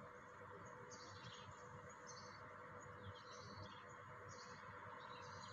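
Near silence, with faint bird chirps about once a second in the background.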